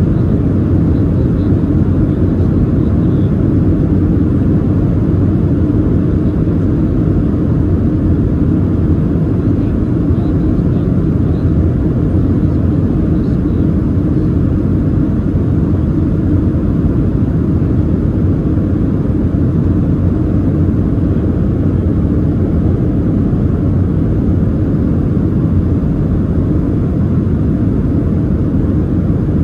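Steady, loud cabin rumble of a Boeing 737-700 in flight on approach: its CFM56-7B turbofans and the airflow over the fuselage, heard from a window seat inside the cabin.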